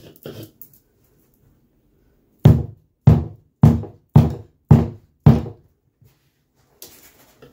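A mallet striking a felt-topped timber tapping block six times, evenly spaced at a little under two a second, dressing the carpet edge down onto the gripper of an aluminium Zee Bar trim. A brief scuff follows near the end.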